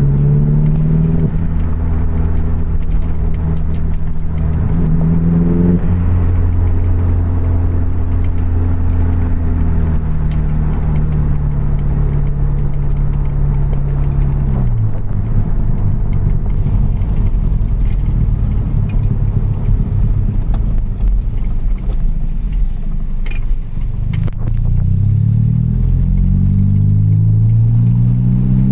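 Straight-piped Audi TT 180's 1.8-litre turbocharged four-cylinder engine running loud, its pitch rising and falling with the revs. It climbs at first, drops about five seconds in and again about fifteen seconds in, then turns to a rough rumble before climbing again near the end.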